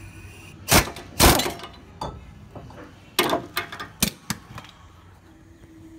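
Loud metallic clanks and knocks of a wrench, socket extension and bolt, worked against the truck's front suspension while the front hub assembly's mounting bolts are removed. Two heavy knocks come near the start, then a quicker cluster of clinks and knocks past the middle.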